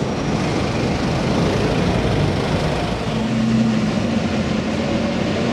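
Steady rumble of vehicle engines and street traffic with no revving; a steady hum comes in about three seconds in.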